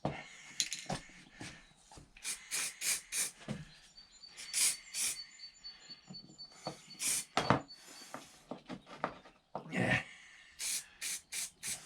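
Hand-work noises in a small room: irregular short scrapes, rustles and clicks, a dozen or more, with a faint steady high tone through the middle stretch.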